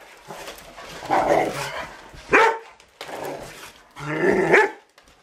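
Rottweiler barking and growling, three drawn-out barks a second or two apart.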